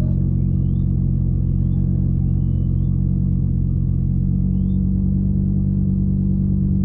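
Race car engine idling steadily, heard from inside the cabin while the car is held on the drag strip's start line.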